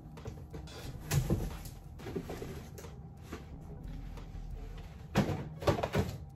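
Cardboard moving boxes and shoe boxes being handled: flaps pushed open and boxes shifted, with a few scattered knocks and a cluster of louder knocks near the end.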